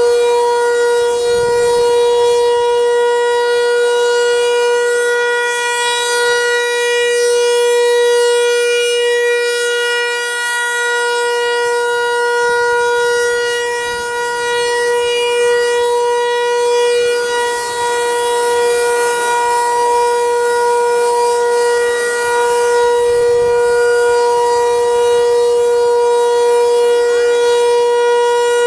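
Federal Signal 508 outdoor warning siren sounding its steady alert signal during a monthly test. It holds one unchanging pitch with no rise or fall, and its loudness wavers only slightly.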